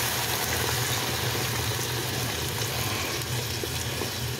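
Chicken broth poured from a carton into a hot skillet of chilies, tomatoes and spices, sizzling with a steady hiss.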